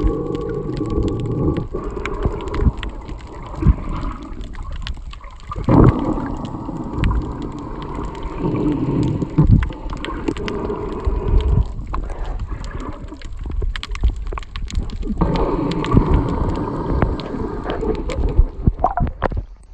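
Water gurgling and sloshing around a phone held underwater, with many scattered clicks and pops.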